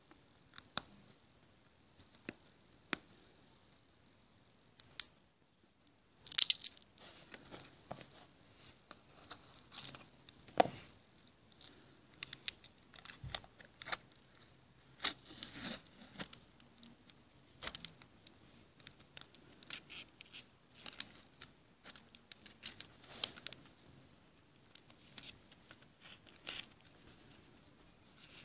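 Masking tape being peeled off a freshly painted terracotta pot and saucer: short, irregular crackling tears and scrapes, with light clicks of the pot being handled. The loudest crackle comes about six seconds in.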